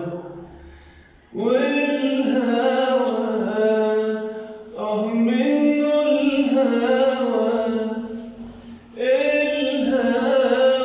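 A man singing unaccompanied in the style of classic Egyptian tarab song, in long held, ornamented phrases. The three phrases have short breaks between them, one about a second in and others near the middle and near the end.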